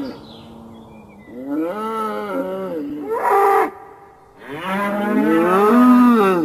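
Cattle mooing: two long moos, the first starting about a second in and the second about halfway through.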